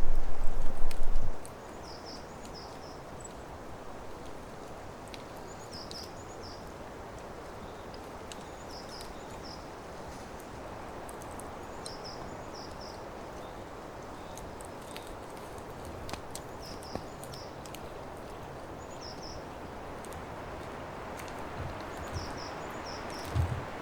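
Forest ambience: a steady rustling background with a small bird repeating a short, high two- to three-note call about every three seconds. A loud low rumble in the first second or so cuts off abruptly.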